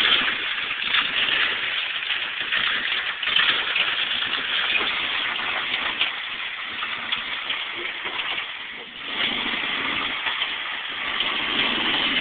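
Off-road pickup truck engine running as the truck crawls over a muddy, rutted trail, under a steady hiss from the recording.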